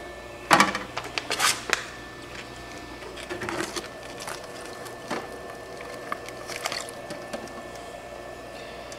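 Anova sous vide circulator running with a steady hum in the water bath. A few sharp knocks and clatters come in the first two seconds, with lighter taps later, as the plastic bath container and its insulated lid are handled.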